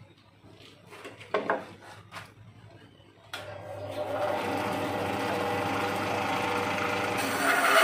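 A few light taps and clicks, then about three seconds in a Makita LB1200F band saw is switched on and runs up to a steady hum. Near the end it gets louder as the blade begins cutting into a piece of wood.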